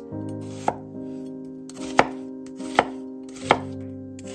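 A kitchen knife chopping an onion on a wooden cutting board: four sharp knocks of the blade striking the board, at uneven intervals, over background music.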